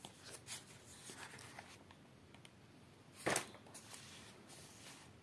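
Notebook page being turned over: a brief paper rustle a little after three seconds in, the loudest sound, with faint scratches and clicks of paper and pen handling before and after it.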